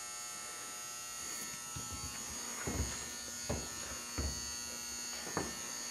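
A steady electrical buzz of many even tones, with four soft, low thumps spread through the middle.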